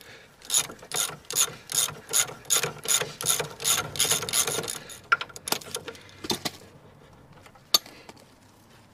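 Socket ratchet clicking in repeated strokes, about two to three a second, as a shock absorber mounting bolt on an Iveco Daily's front suspension is undone. The strokes stop about five seconds in, and a few separate clicks follow, one sharp and loud near the end.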